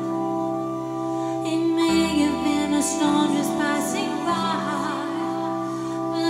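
Live band music: a woman singing over held chords from a Korg X5 synthesizer, with a low bass part that steps to a new note every second or two.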